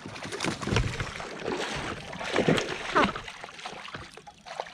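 Water splashing and sloshing beside the boat as a big hooked bass thrashes at the surface while it is brought in, the noise easing off in the last second.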